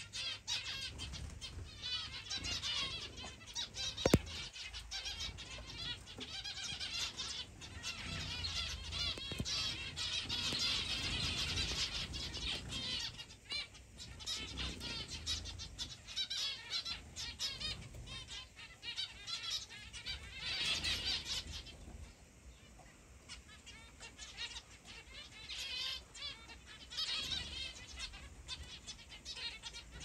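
Mixed aviary flock of zebra finches, canaries and other small finches chirping and chattering together in a dense, continuous mix of short calls. A single sharp click sounds about four seconds in.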